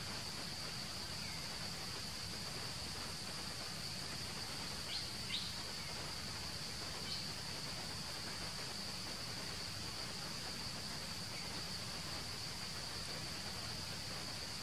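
Steady high-pitched insect drone in the forest, with a few brief high chirps about five and seven seconds in.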